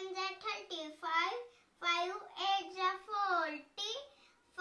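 A child singing unaccompanied, in short phrases of held, level notes with brief pauses between them.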